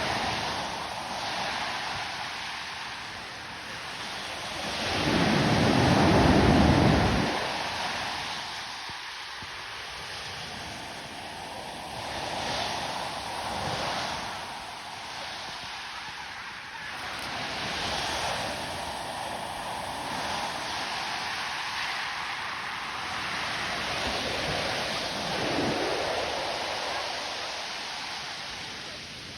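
Stormy sea surf: waves breaking and washing in continuous slow swells, with one much louder, deeper surge about five to seven seconds in.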